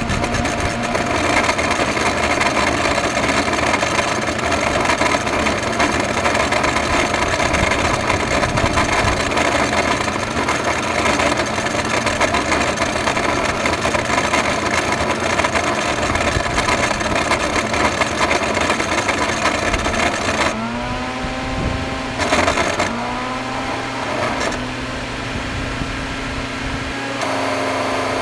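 Electrolux vacuum cleaner with a bad motor running with a loud, rough, noisy whir. About twenty seconds in the sound thins out and the pitch climbs twice in quick succession before settling into a steadier hum, which grows louder again near the end.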